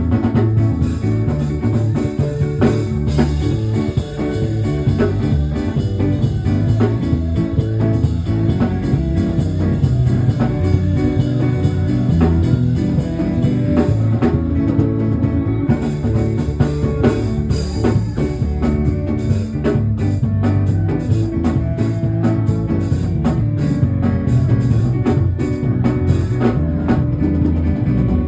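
Band music with guitar and drum kit playing a steady groove, with no words heard.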